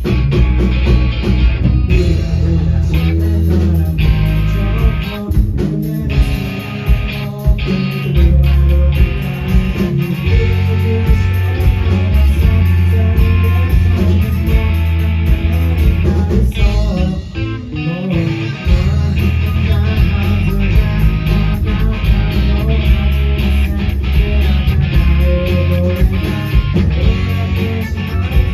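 Live rock band playing through a PA: electric guitars, bass guitar and drums with a lead singer. The band drops back briefly about seventeen seconds in.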